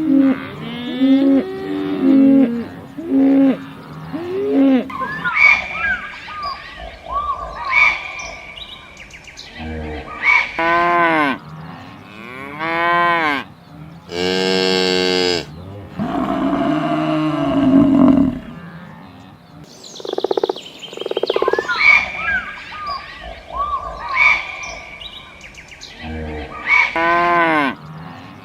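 Cows mooing in a string of separate calls of varied pitch, many rising and falling in long arcs, with short gaps between them.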